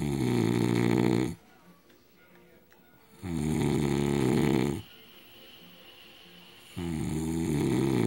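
A sleeping man snoring loudly, like a bullfrog: three long, deep snores, each about a second and a half, coming about every three and a half seconds, with the last one starting near the end.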